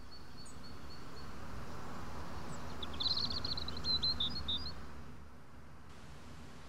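Songbirds outdoors: a thin high note repeated several times at the start, then a quick burst of twittering song about three seconds in, over steady low background noise.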